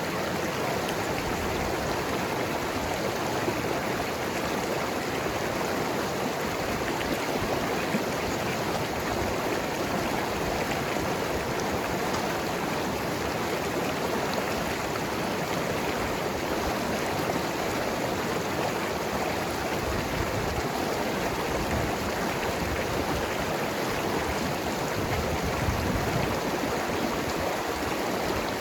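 Mountain river flowing and gurgling over rocks: a steady, even rush of water.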